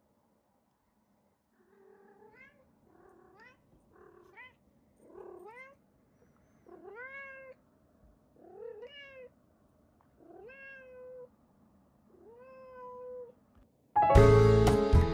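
Domestic cat meowing repeatedly: about ten short calls a second or so apart, each rising then holding its pitch, getting longer and louder as they go. Background music comes back in near the end.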